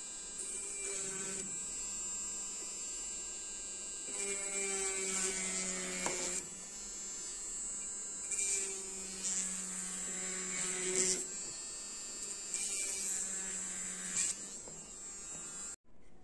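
Jeweller's handheld rotary tool running with a steady high whine as its bit works the prongs of a silver ring, growing louder in several stretches as the bit is pressed to the metal. It cuts off suddenly near the end.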